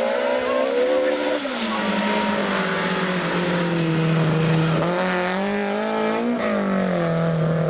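Rally car engine running hard. Its note drops sharply about a second and a half in, climbs again, and drops once more near the end.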